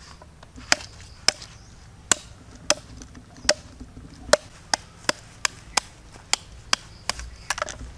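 Large knife chopping into a raw goat head: about fifteen sharp strikes, irregularly spaced and coming faster in the second half.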